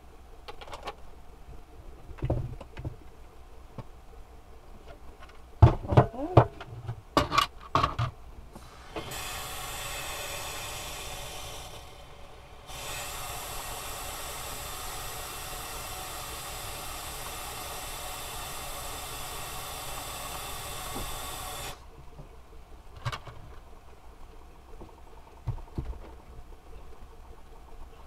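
Plastic water-filter pitcher parts knocking and clattering as they are handled and fitted together, then kitchen tap water running steadily into the pitcher's reservoir, for about three seconds, stopping briefly, then for about nine seconds more. A couple of light knocks follow.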